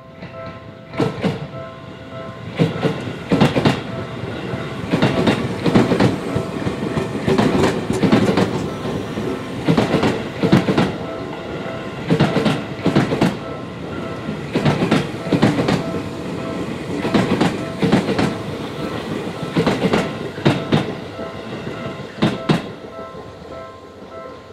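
Electric commuter train of the Seibu Toshima line passing over a level crossing, its wheels clattering over the rail joints in repeated double knocks over a steady rumble. The crossing's warning bell keeps dinging in a pulsing, high tone.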